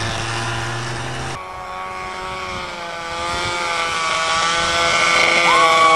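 Snowmobile engines running at a distance. The sound changes abruptly about a second and a half in, and near the end an engine revs up, its pitch rising.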